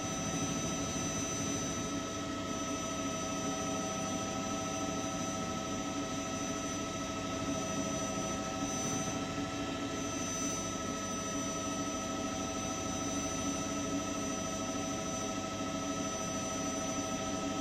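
News helicopter's turbine engine and rotor running steadily in flight: a continuous hum with a constant high whine over it.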